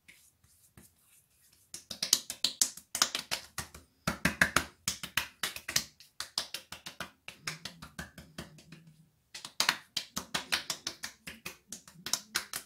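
Hands patting and slapping aftershave splash onto wet face and neck skin. Rapid runs of sharp pats, several a second, begin about two seconds in and break off briefly a few times.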